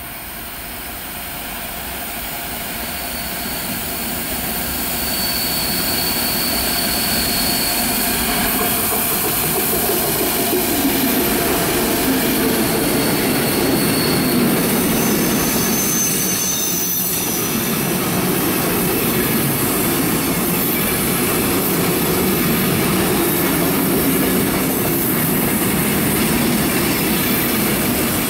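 Freight train hauled by a DB Class 232 diesel locomotive, growing louder over the first few seconds as it approaches and then passing close by in a steady stream of wagons rolling over the rails. High-pitched wheel squeal comes and goes over the rolling noise.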